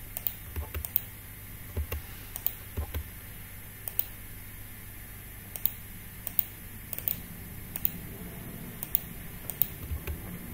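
Irregular clicks of a computer keyboard and mouse, with a few low thumps, over a steady low hum.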